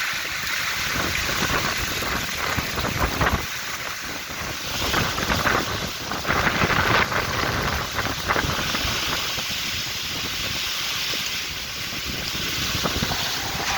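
Heavy rain and strong gusting wind of a thunderstorm, the gusts buffeting the microphone with an uneven rumble.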